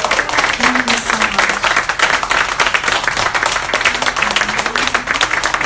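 Small audience applauding steadily, with a few voices calling out over the clapping.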